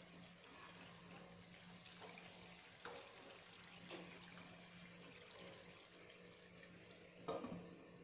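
Quiet pan sounds: faint sizzling of chicken masala in a kadhai with a few light spatula touches, then a knock about seven seconds in as a glass lid is set on the pan.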